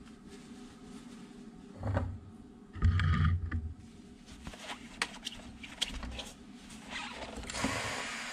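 Handling knocks and cloth rustling at a home espresso machine, loudest in a short low rumble about three seconds in. Near the end a steady hiss begins: the steam wand purged into the towel wrapped around it.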